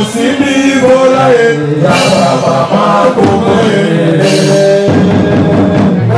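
A crowd of rally supporters chanting a song together, loud and continuous.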